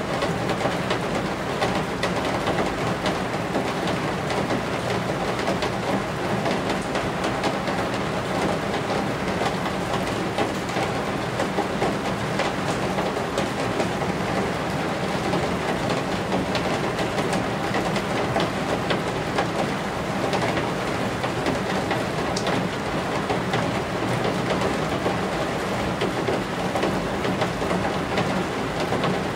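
Steady rain falling on roof eaves, with many separate drop hits over an even wash, and a steady low hum underneath.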